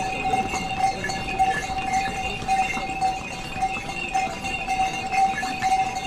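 Small bells on a pony's harness ringing steadily as it walks, with its hooves clip-clopping on a stone path.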